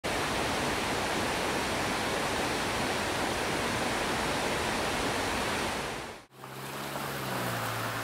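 Rushing water of a mountain river, a loud, even rush that fades out sharply about six seconds in. After that comes a quieter background with a low steady hum.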